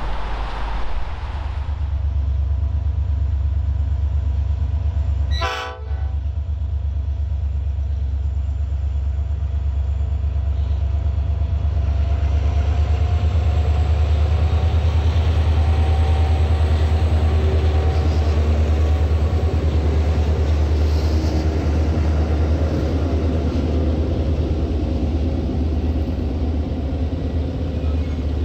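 Several diesel freight locomotives, led by an SSR CLF-class unit, running past close by: a heavy, steady engine rumble that swells about halfway through. There is a sharp break where the recording cuts about five and a half seconds in.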